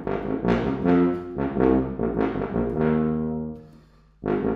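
Wessex Wyvern C tuba, a 5/4-size tuba with four pistons and one rotor, played solo: a phrase of separate notes that ends on a long held note fading out about three and a half seconds in, then after a brief pause the next phrase starts near the end.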